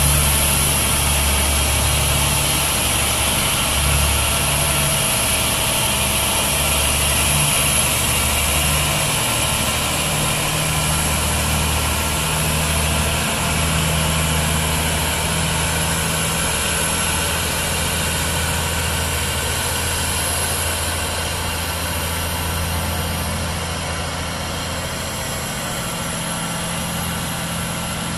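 Aircraft pushback tug's diesel engine running steadily at low revs, with a steady high whine above it.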